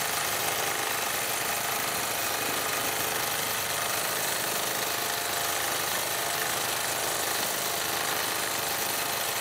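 Gammill longarm quilting machine stitching freehand, its needle running at a steady rapid rate as the head is guided across the quilt.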